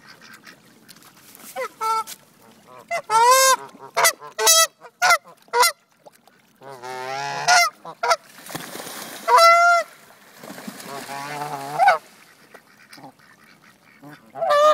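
Geese honking: a string of separate harsh calls with short gaps between them, several coming in quick runs of two or three.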